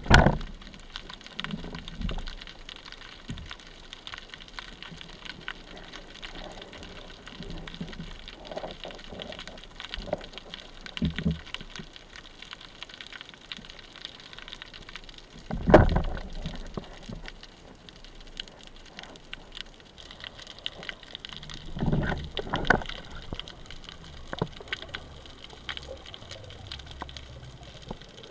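Underwater ambience heard through a camera housing: a fine, steady crackle of small clicks over a low water hiss, broken by muffled thumps and water rushes, the loudest about 16 seconds in and another pair around 22 seconds.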